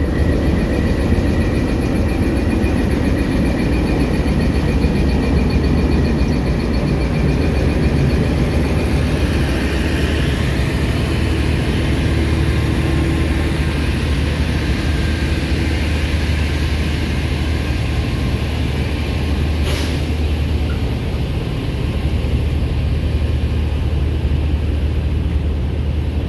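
Pakistan Railways GEU-20 diesel-electric locomotive, then the power van and coaches of the Green Line Express rolling slowly past on departure: a steady low diesel drone with rumbling wheel and rail noise. A single sharp clank about twenty seconds in.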